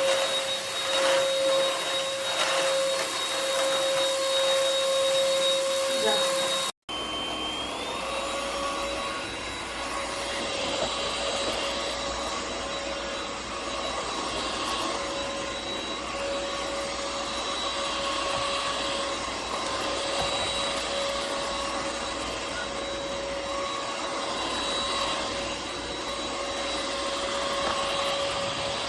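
UML0 N8 cordless stick vacuum running steadily with an even, high-pitched whine. The sound drops out for an instant about seven seconds in, then carries on unchanged.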